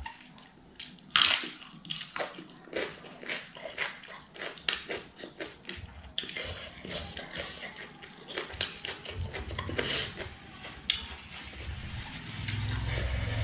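Close-up eating sounds: wet chewing and lip smacks with many short clicks and crunches from a crunchy dry topping and cabbage eaten by hand. Near the end a low rumbling noise comes in.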